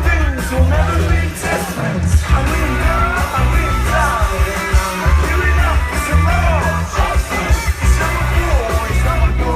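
Live rock band playing at full volume with a lead vocal singing over heavy, steady bass and drums.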